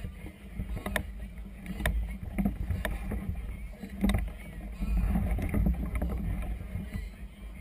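Wind buffeting a GoPro Hero 2 camera's microphone, a fluctuating low rumble, with sharp knocks roughly once a second.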